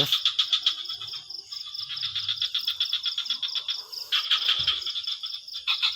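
Night chorus of frogs and insects: rapid, evenly pulsed high trilling calls in several bursts with short gaps.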